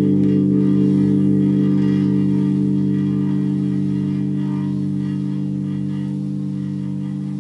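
A deep, steady drone of several held low tones with a slow pulsing warble, fading gradually. It is presented as the "sound of threat" coming from deep inside the Earth.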